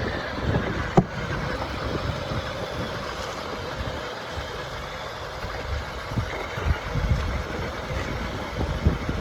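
Steady, idling-like engine sound from the remote-control construction models working in sand, with irregular low rumbles, a sharp click about a second in and a few low knocks near the end.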